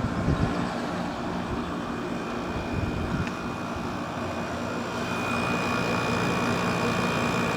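Everstar air conditioner running with its LG compressor and fan on, a steady hum with a faint high whine that grows a little stronger about five seconds in. It runs fairly quiet, the sound of a compressor in good working order.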